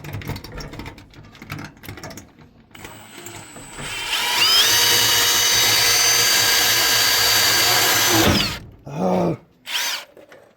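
Power drill driving a screw: a few handling clicks, then the motor spins up with a rising whine about four seconds in, runs steady for about four seconds and winds down, followed by a short extra burst near the end. The screw is not going in, which the builder puts down to junk screws.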